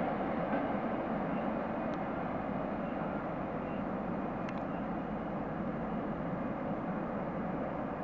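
Freight train rolling away: a steady rumble of wagon wheels on the rails that slowly fades.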